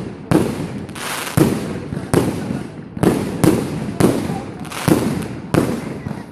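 Fireworks display with shells bursting in quick succession: about ten sharp bangs, roughly one every half second, each echoing away.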